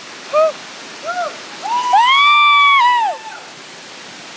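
Two short shouts, then one long, loud, high-pitched yell lasting about a second and a half that rises, holds and falls in pitch, the cry of a rope jump leaping off a bridge. The steady rush of a stream runs underneath.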